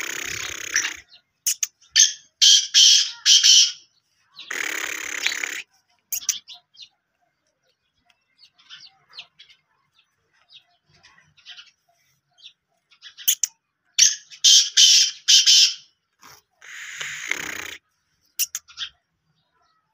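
Black francolin calling: two bouts of loud, repeated grating notes, about two seconds in and again about fourteen seconds in, each with a coarser, noisier burst close by. Faint small-bird chirps between the bouts.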